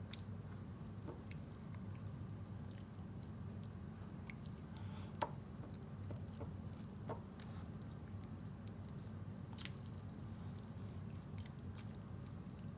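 Hand pressing and rubbing raw steaks in a tray of marinade and chopped onion: soft wet squishing with scattered small clicks, the sharpest about five seconds in, over a steady low hum.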